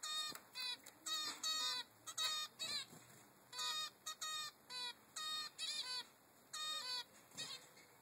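Three-week-old zebra finch fledgling begging for food, giving a rapid string of short, repeated calls, about fifteen in all, some in quick pairs.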